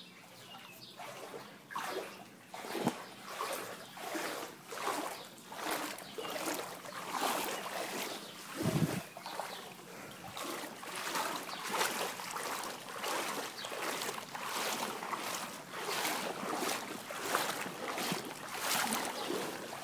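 Legs wading through shin-deep floodwater, each stride a splash and slosh in a steady walking rhythm that gets louder after the first couple of seconds.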